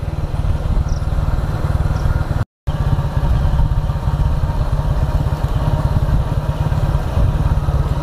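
Motorcycle engine running as the bike rides along, a steady fast low pulsing. The sound cuts out completely for a moment about two and a half seconds in.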